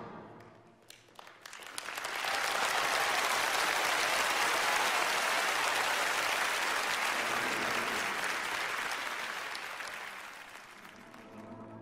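Audience applauding. A few scattered claps at first, then full, steady applause from about two seconds in that dies away near the end.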